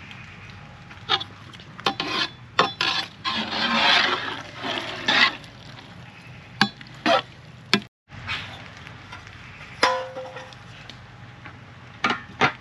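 Cooking sounds: a series of sharp knocks and clinks of utensils against pots and dishes, with a couple of seconds of stirring and scraping near the middle.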